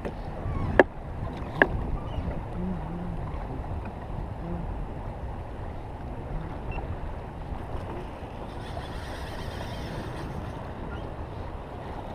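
Choppy water slapping against a fishing kayak's hull with wind on the microphone, and two sharp knocks close together about a second in.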